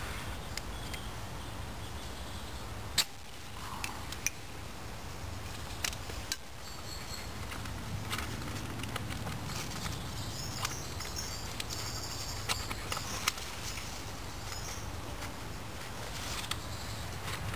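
A ferro-rod fire steel being struck over a Trangia meths burner to light it: one sharp strike about three seconds in, then a few lighter clicks. Faint high chirping comes in and out later, over a steady outdoor background.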